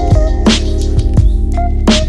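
Background music with a steady drum beat under bass and melody notes, with a strong drum hit about half a second in and another near the end.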